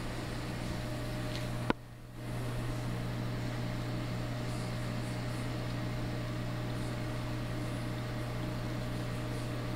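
Steady electrical hum of a reef aquarium's pumps and equipment running. A sharp click comes about two seconds in, and the sound drops out briefly for about half a second before the hum resumes.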